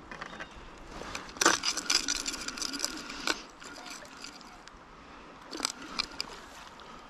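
A flurry of sharp clicks, rattles and scrapes close to the microphone for about two seconds, then a few more clicks a couple of seconds later: handling noise from an angler working a rod and reel while playing a fish.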